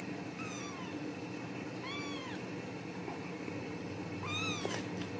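Ragdoll kitten meowing three times, short high meows that each rise and fall in pitch, the first one fainter: a kitten mewing to be let out of its pen.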